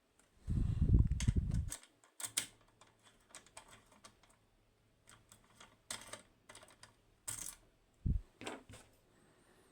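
Handling noise from a padlock and its picking tools. There is a dull rubbing rumble for about a second near the start, then scattered small clicks and taps of metal.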